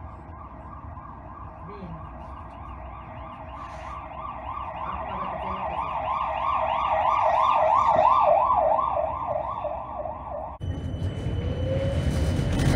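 Siren of a fire-service ambulance van closing in from behind: a fast up-and-down yelp, several sweeps a second, growing louder, then cut off suddenly about ten seconds in. After the cut there is a loud low rumble.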